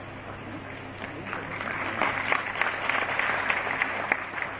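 Audience applauding, building up about a second in and thinning to scattered claps near the end.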